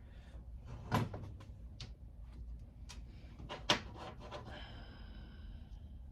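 Knocks and clicks of metal heater fan-motor parts being handled and fitted, two of them louder, followed by a brief high squeak of about a second.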